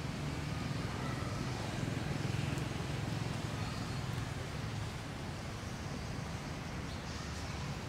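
Steady low rumbling background noise with an even hiss, swelling slightly a couple of seconds in; no calls from the monkeys stand out.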